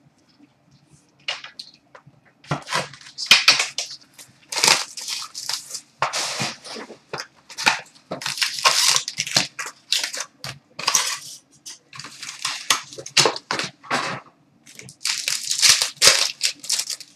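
Plastic wrapping crinkling and tearing in irregular bursts of crackles as a sealed box of trading cards and its packs are opened by hand.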